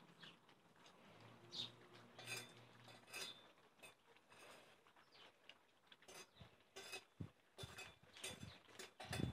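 German Shepherd puppies eating from stainless steel bowls set in a metal feeding rack. The bowls give faint, irregular clinks and knocks as the puppies nose and lick into them, coming more often in the second half.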